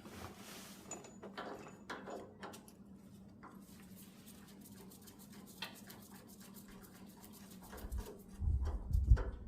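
Scattered light clicks and taps of small parts being handled, over a faint steady hum, then a few heavy low thumps near the end.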